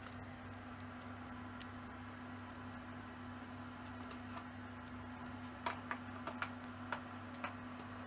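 A cockatiel's claws ticking faintly as it steps about on a perch and plastic toy house, with a small run of sharper clicks about two thirds of the way in. A steady low hum runs underneath.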